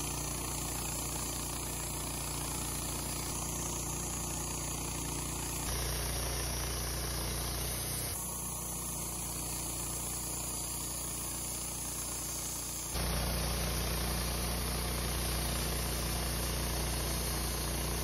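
Wood-Mizer LT15 portable band sawmill running, its engine and band blade sawing through a log, a steady mechanical drone under a wide cutting noise. The sound shifts abruptly three times, as the footage jumps.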